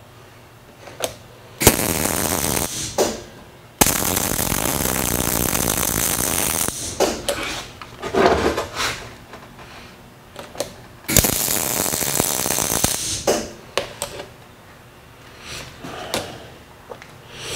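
MIG welder arc crackling in three runs: a short one about two seconds in, a longer one of about three seconds right after, and another short one near eleven seconds, each starting and stopping abruptly as gussets are welded onto a steel bracket. Small clicks and handling noises fall between the runs.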